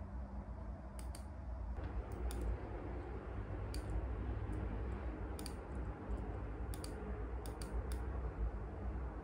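Occasional keystrokes on a white low-profile computer keyboard, sharp clicks at irregular intervals, several in quick pairs. A steady low hum sits underneath.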